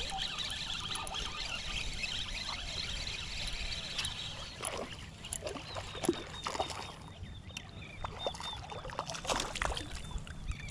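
A small hooked spotted seatrout splashing and thrashing at the surface of shallow water as it is reeled in on a spinning rod. The splashes are irregular, in the second half, the loudest about six seconds in.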